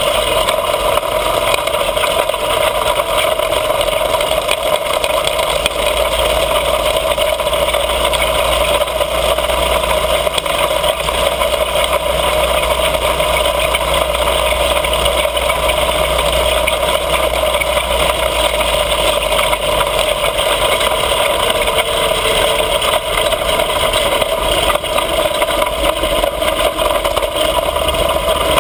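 Mini bike's small engine running steadily under way, with wind rumbling on the handlebar-mounted camera's microphone.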